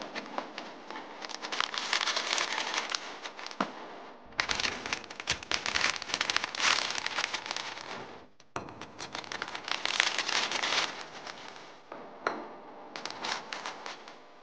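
Crinkling and crackling of a clear plastic bag and cardboard box being opened and handled. It comes as dense runs of small crackles, with short breaks between them.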